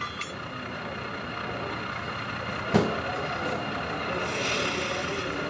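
Model train running on a layout, a steady rumble that grows louder as it approaches, with one sharp click about halfway through and a brief hiss near the end.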